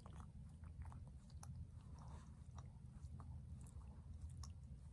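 A Shih Tzu chewing and licking at its paws, faint small wet clicks and smacks a few times a second over a low steady room hum.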